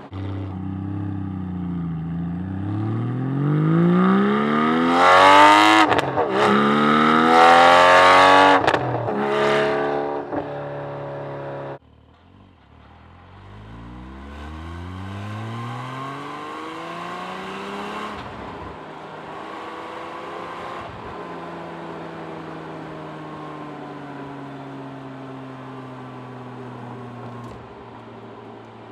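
Porsche 718 Cayman GT4's 4.0-litre flat-six heard from outside the car, rising in pitch as it accelerates, with quick upshifts and the loudest pull about five to nine seconds in. It then eases off. The sound cuts off abruptly about twelve seconds in. A second, quieter pull follows and settles into a steady, slowly falling tone.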